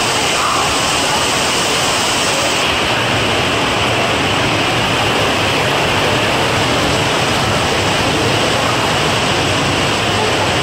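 Rain falling steadily: a loud, even hiss with no breaks.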